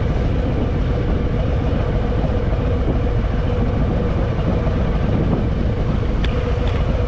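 Harley-Davidson Fat Boy's V-twin engine running steadily while riding, a continuous low rumble with an even note.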